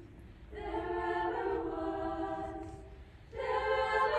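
Show choir singing slow, sustained chords in harmony: a chord swells in about half a second in and fades away near three seconds, then a louder new chord enters.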